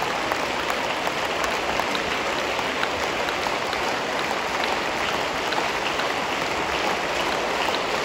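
Audience applauding steadily: dense, even clapping.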